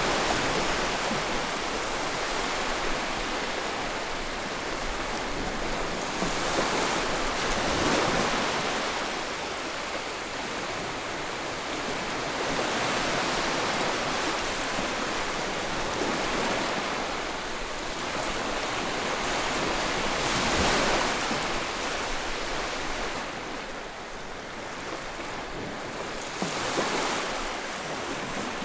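Sea waves breaking on the shore, a continuous surf wash that swells as each wave comes in, every few seconds.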